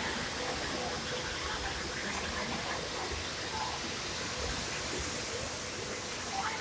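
Steady, even hiss and rush of industrial noise in a thermal power plant's boiler house around the burners, with no breaks or changes.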